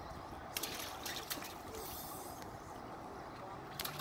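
Faint outdoor street background noise, with a few soft clicks about half a second to a second and a half in.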